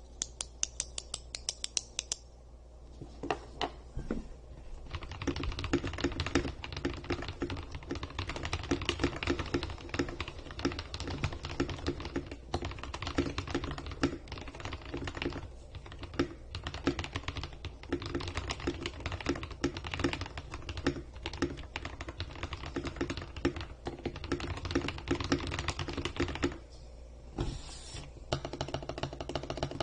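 Maxfit67 mechanical keyboard with a layer of PE foam, the Tempest mod and lubed, Holee-modded stabilizers, typed on continuously. A quick run of light high clicks opens it, then steady fast typing with a short pause near the end.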